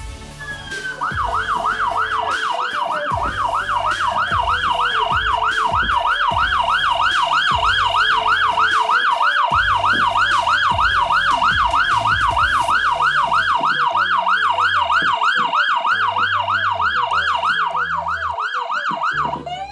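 Emergency vehicle siren on yelp, a fast rise and fall in pitch about three times a second. Just before the end it switches to a slow rising wail.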